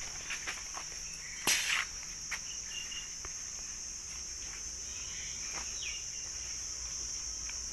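Steady high-pitched drone of insects, with a few faint clicks and one brief, louder rustling scrape about a second and a half in.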